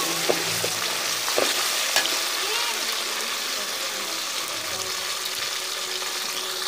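Ginger-garlic paste and cumin paste sizzling as they fry in hot oil with browned onions, being stirred, with a few sharp knocks in the first two seconds.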